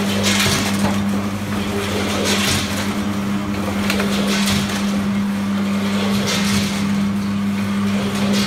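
Automatic weighing and packing machine (multihead weigher over a vertical bagger) running: a steady electric hum under a noisy, crackling hiss that comes in bursts about every two seconds as the machine cycles.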